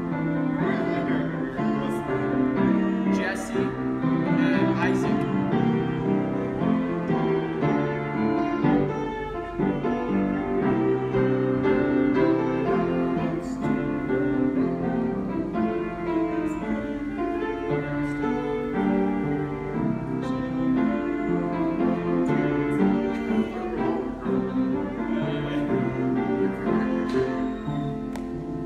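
Grand piano played solo in full chords, a patriotic song, going on without a break.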